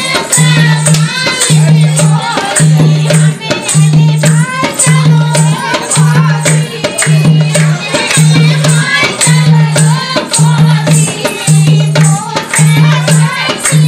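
Indian village folk dance song (dehati geet) with a singing voice over a steady beat: a low bass note about once a second and a shaker-like rattle ticking several times a second.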